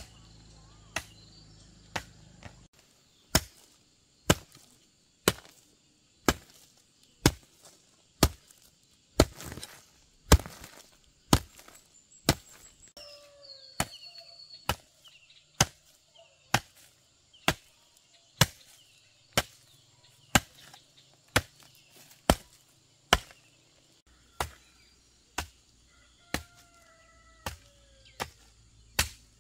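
Steady chopping with a hand tool, one sharp blow about every second.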